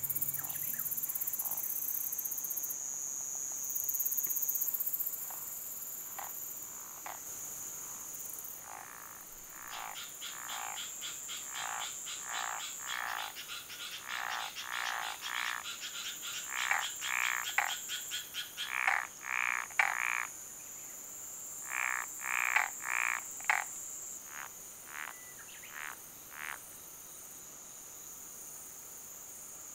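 Frog calling: a long run of short croaks, about two to three a second, in two bouts, loudest in the middle, over a steady high-pitched hum of insects.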